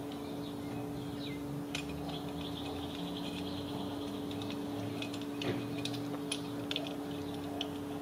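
Light metallic clicks and clinks of a tool on the idler pulley's 10 mm bolt as it is worked loose, with a few sharper clicks in the second half, over a steady low hum.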